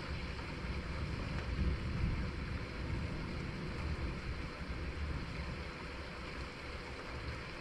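Distant thunder rumbling low and rolling, swelling about two seconds in and easing off after about five seconds, over a steady hiss.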